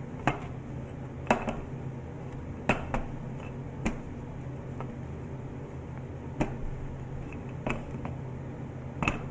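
Wooden rolling pin rolling out pastry on a board, knocking and clacking against the board about seven times at uneven intervals, over a steady low hum.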